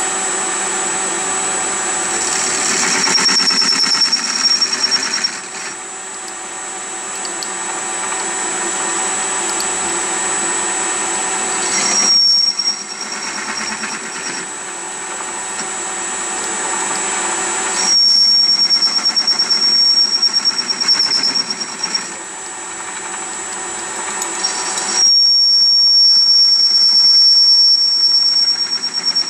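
Metal lathe running, its drive whining steadily, as a cutting tool turns a rusty steel workpiece. A high squeal from the cut comes in four times, the longest near the end.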